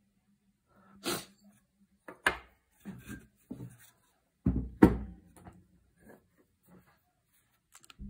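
Steel gun-lock parts and a lock plate being handled and set down on a wooden table: a series of knocks and clacks, the loudest pair about four and a half seconds in.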